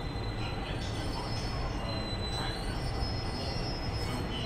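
JR Freight electric locomotives EF210 and EH800 rolling through the station on steel wheels: a steady low rumble with thin, high squealing tones from the wheels on the rails.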